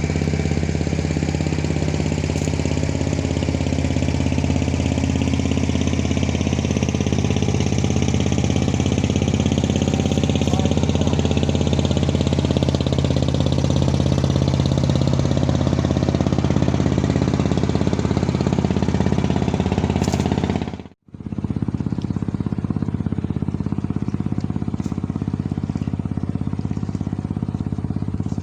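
A motor engine running steadily. About three-quarters of the way through it cuts out for a moment and comes back sounding duller.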